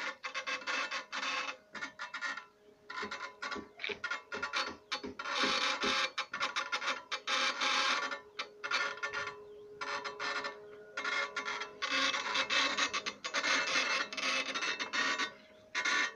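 CNC engraving machines cutting into polished black granite: the engraving tool scratches the stone in irregular stop-start bursts of rasping, with a steady stepper-motor hum beneath. One steady tone from the motors holds for a few seconds around the middle.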